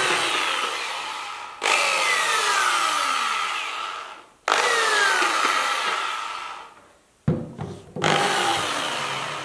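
Bosch PBS75AE belt sander's motor and drive switched on in several short bursts with the sanding belt off; each time it starts suddenly, then winds down with a falling pitch. The drive still sounds wrong, which the owner puts down to the driving mechanism, where the internal drive belt is worn out.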